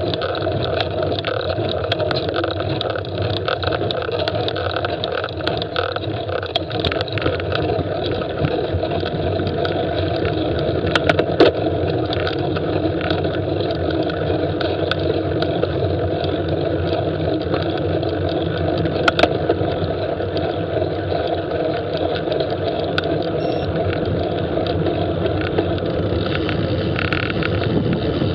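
Steady rush of wind and road noise from a bicycle being ridden with the camera on board, with a couple of sharp clicks partway through.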